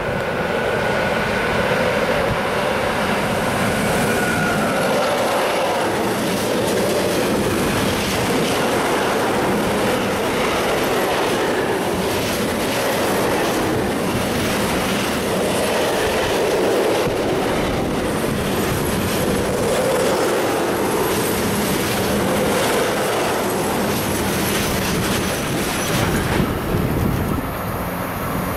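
Long freight train of pressurised tank wagons passing close by, its wheels clattering over the rail joints, with a thin wheel squeal in the first few seconds.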